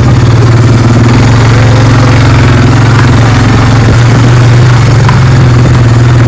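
Farm motorbike engine running steadily at an even speed, loud and close.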